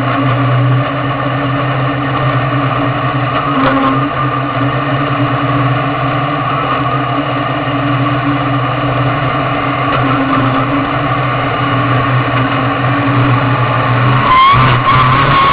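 Dirt Sportsman modified's V8 engine running at a steady low speed, heard from inside the cockpit as the car rolls slowly with the field. Near the end the pitch rises briefly.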